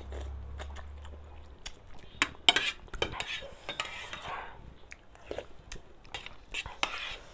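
Spoon and fork clinking and scraping against a metal plate of noodles in short irregular clicks, the sharpest about two and a half seconds in, mixed with the soft mouth sounds of eating noodles.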